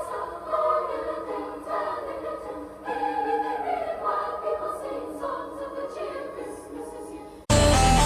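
Choral singing playing over a radio tuned to a light-show broadcast. Near the end it cuts off suddenly and much louder electronic music takes over.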